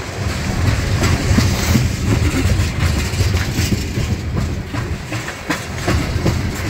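Freight train tank cars rolling past at close range: a steady low rumble of steel wheels on rail, broken by many irregular clicks and clunks.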